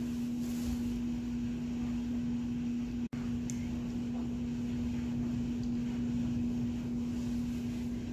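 A steady low hum over faint room noise, with a brief dropout about three seconds in.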